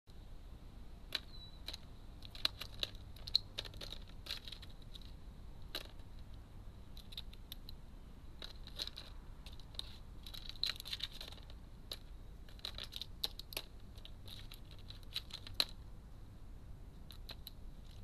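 Irregular clicks and taps of a crow's beak working an in-shell walnut against a plastic feeder tray, coming in clusters and thinning out near the end, over a faint steady high-pitched tone.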